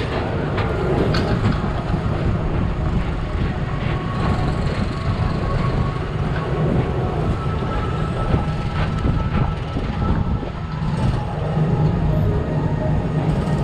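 Tomorrowland Transit Authority PeopleMover car riding along its track: a steady low rumble with occasional light clicks.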